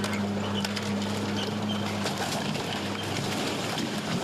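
Excavator engine running with a steady low hum as its grapple pulls down a building front. Timber and brick crack, clatter and crash down in a continuous collapse.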